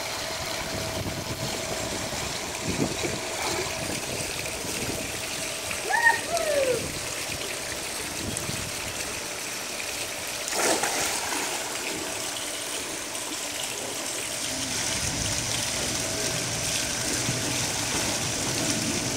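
Swimming pool water trickling and lapping, with a splash about ten seconds in as a child jumps in from the pool edge, then steady splashing as she swims. A short high child's call about six seconds in.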